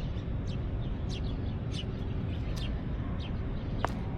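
Small birds chirping, many short, quick high calls one after another, over a steady low rumble of background noise. One sharp click sounds near the end.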